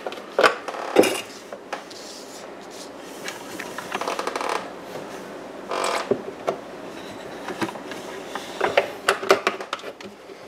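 Kitchenware being handled on a counter: scattered light knocks, clicks and rubbing from bowls and utensils. Two sharp taps come early, a short scraping rustle comes around the middle, and a quick run of clicks comes near the end.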